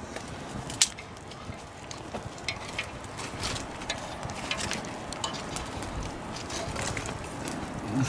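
Quiet outdoor background with scattered light clicks and taps from hands eating out of metal plates and an iron cooking pot; the sharpest click comes about a second in.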